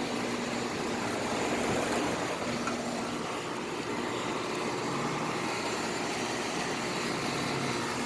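Four Amana central air conditioner outdoor condensing units with ECM fan motors running together: a steady whoosh of air with a faint low hum.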